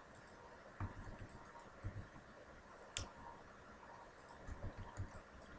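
Scattered faint clicks of a computer mouse and keyboard being worked, the sharpest about three seconds in.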